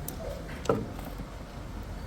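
Low steady background hum with two light clicks a little over half a second apart.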